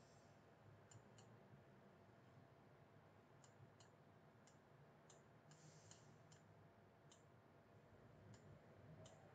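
Faint computer mouse clicks, about a dozen short clicks at irregular intervals, over a low steady hum.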